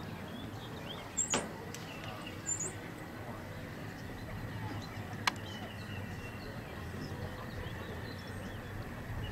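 Open-air ambience with a few short, high bird chirps in the first few seconds and a single sharp click about five seconds in.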